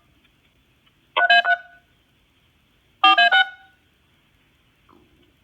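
Fire dispatch alert tones coming through a radio scanner's speaker: two short bursts of several electronic tones sounding together, about two seconds apart, over a faint steady hiss. They are the alerting tones that come before a dispatcher calls out fire units to a vehicle crash.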